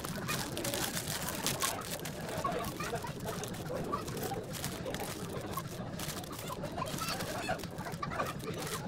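Plastic snack packets crinkling as they are handled and set into wire baskets. Birds, chickens among them, call in short scattered notes in the background.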